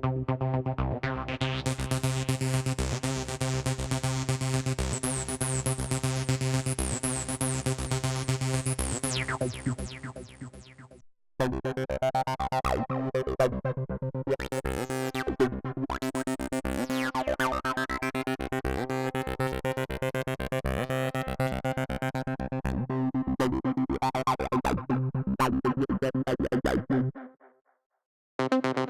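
Arturia Acid V software synthesizer, a TB-303-style acid bass emulation, playing fast repeating sequenced patterns from its factory presets. The first pattern has its filter opened bright for several seconds and stops about eleven seconds in. After a brief gap a second preset's pattern plays and stops about a second before the end, and a third starts just before the end.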